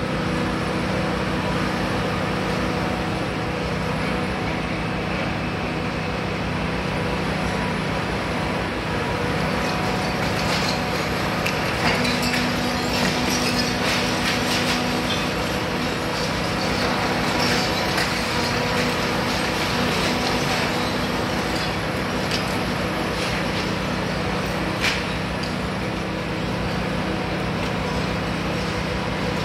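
Hitachi Zaxis 350 high-reach demolition excavator's diesel engine running steadily under hydraulic load, with a higher hydraulic note coming in for several seconds partway through. Scattered cracks and knocks of breaking masonry come from the demolition attachment working the top of the building.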